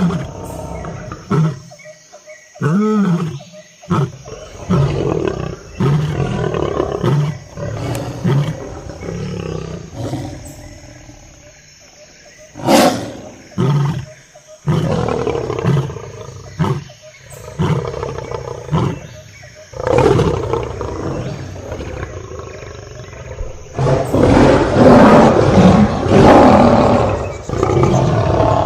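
Lions roaring: a bout of deep roars and short grunting calls about a second apart, growing louder and denser near the end.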